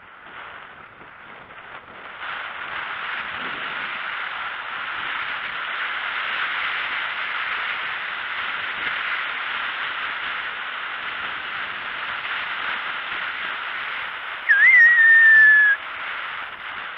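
Steady rushing hiss of wind on the microphone of a bicycle coasting fast downhill, building about two seconds in. Near the end a loud, high whistle sounds once for about a second, wavering at its start and then sliding slightly down in pitch.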